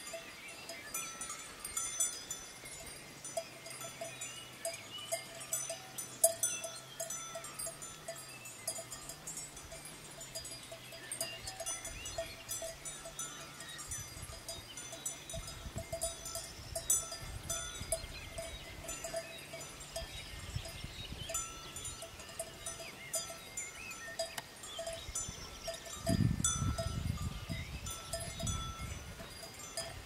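A small cowbell on a grazing cow clinks and rings irregularly as the cattle crop grass, with many short light clicks. Near the end a few seconds of low rumbling noise are the loudest thing.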